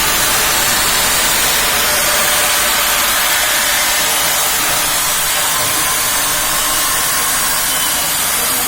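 CNC milling machine running: a steady, loud hiss-like noise with faint high tones held throughout.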